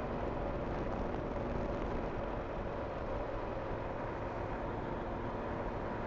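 Yamaha Super Ténéré parallel-twin motorcycle cruising at a steady speed, its engine hum mixed with steady wind and road noise at a helmet-mounted microphone.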